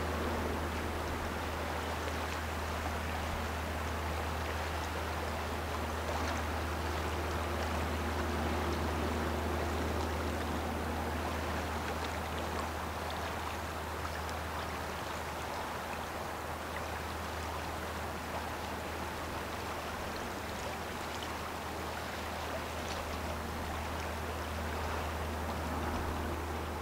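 Gearless lake freighter Tim S. Dool passing on the river: a steady low engine drone under a constant rushing, stream-like hiss of water.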